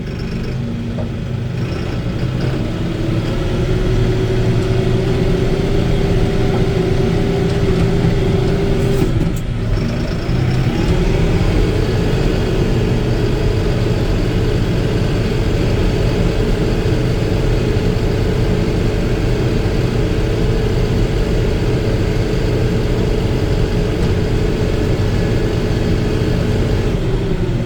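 Tractor engine heard from inside the cab, picking up speed over the first few seconds and running steadily. About nine seconds in it drops off briefly, then comes back up to a higher steady speed, easing off near the end.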